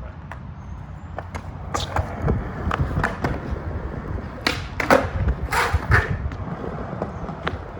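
Skateboard wheels rolling over pavement with a steady rumble, broken by sharp knocks of the tail popping and the board landing during flat-ground kickflip attempts, the loudest cluster of impacts just past the middle.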